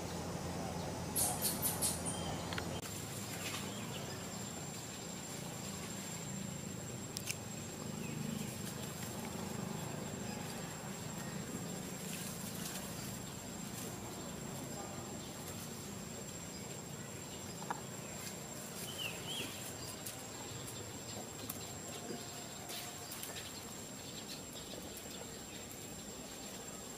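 Outdoor ambience under trees: a steady hiss with a thin, steady high whine, a quick run of high chirps about a second in, and scattered faint chirps and clicks.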